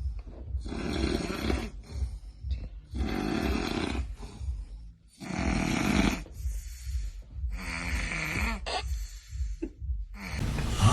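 Heavy snoring: four long snores about two and a half seconds apart, with quieter breaths between them.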